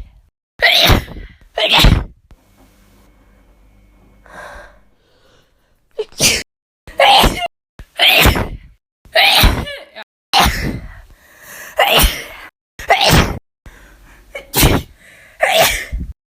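A woman sneezing again and again, about eleven sharp sneezes in all: two near the start, a quieter pause of a few seconds, then roughly one a second.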